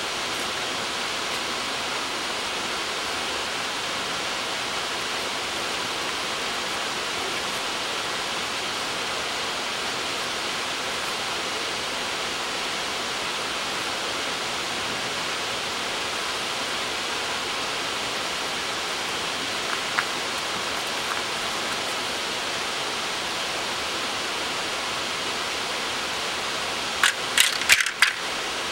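Steady rushing hiss throughout, with a faint click about twenty seconds in and a quick run of sharp clicks and knocks near the end.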